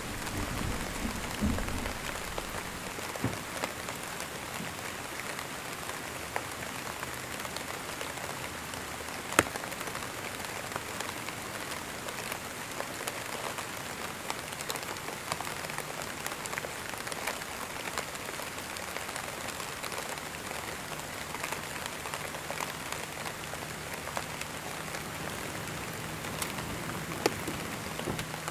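Steady rain on a stormy night, an even hiss dotted with small drop ticks. A thunder rumble dies away in the first couple of seconds, and a single sharp tick stands out about nine seconds in.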